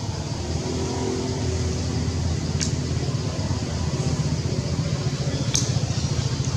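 Steady low engine rumble, like a motor vehicle running nearby, with two brief sharp high-pitched clicks about three seconds apart.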